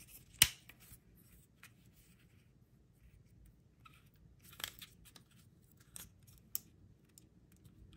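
Sharp plastic clicks from a PEZ candy dispenser being handled as its head is tilted back to push out a tablet: one loud click about half a second in, then a few quieter clicks later on.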